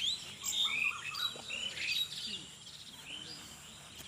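Several birds chirping and whistling, short notes overlapping one another, busiest in the first two seconds and thinning out after that.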